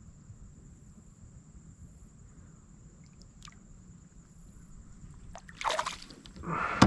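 Water trickling and dripping beside a kayak as a hand lets a fish go in shallow water, with two louder splashing rushes near the end.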